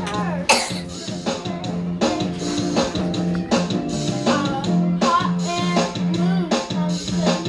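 Karaoke backing track playing, with guitar, drums and a steady bass line. A voice sings along in short phrases.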